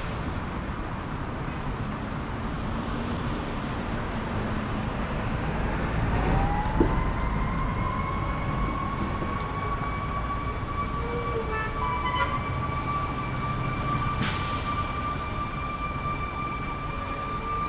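Steady city traffic rumble. About six seconds in, a distant siren's tone rises and then holds, drawn out and slowly climbing, to the end. A short sharp click comes partway through.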